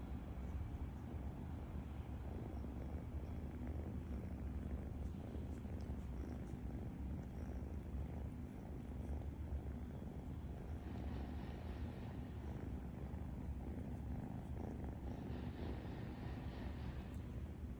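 A sleeping cat snoring: a steady, rapid low rumble.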